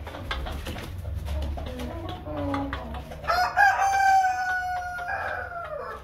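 A Light Brahma rooster crows once, starting about three seconds in: one long, held call lasting about two and a half seconds that drops in pitch as it ends. Before it there are soft clucks from the flock and scattered light clicks.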